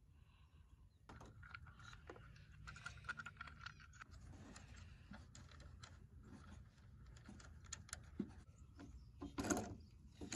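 Faint small clicks and rustling as hands work wiring and fit a small LED light bar onto its metal mounting bracket, with one louder knock about nine and a half seconds in.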